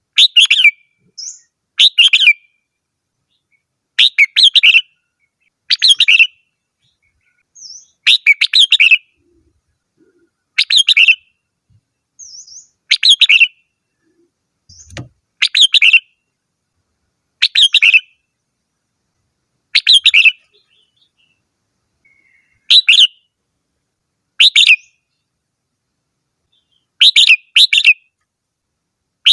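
Red-whiskered bulbul singing: a short, rapid phrase of under a second, repeated about every two seconds.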